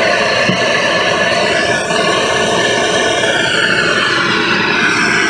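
MAP gas hand torch burning with a steady loud hiss, keeping silver molten in a melting dish; its tone slowly shifts partway through.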